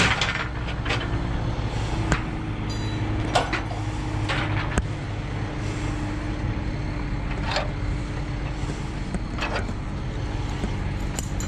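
A vehicle engine idling steadily, with scattered short clicks and knocks over it.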